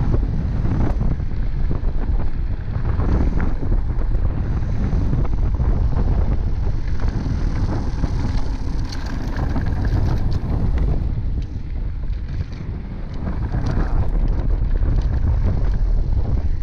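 Wind rumbling over the camera microphone as a Haibike DH 9.0 mountain bike rides a dirt trail, with tyre noise on the dirt and scattered short knocks and rattles from the bike over bumps.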